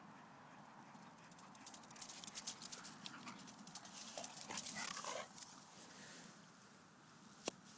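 A pitbull's paws hitting the grass in a fast run, a rapid patter of footfalls that gets louder as the dog comes close. Short dog sounds follow close by about four to five seconds in, and there is a single sharp click near the end.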